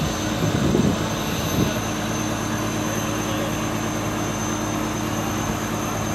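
Fishing boat's engine running steadily, a constant low hum with an even hiss over it.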